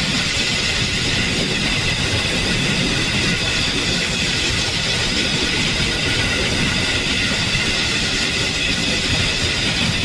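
Harsh, dense wash of vocoder-processed electronic sound at a steady level, with several held bands of tone over a grainy low rumble and no breaks.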